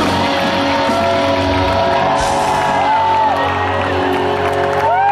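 Live rock band holding sustained chords, with the concert crowd cheering and whooping over them.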